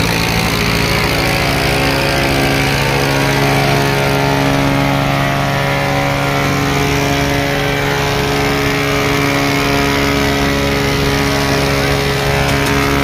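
Diesel tractor engine running hard at a steady speed, holding one even pitch.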